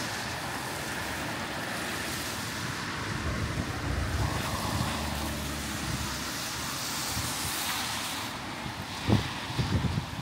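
Steady hiss of rain on a wet street. A vehicle passes on the wet road in the middle, its engine giving way to tyre hiss, and a few low thumps come near the end, the first the loudest.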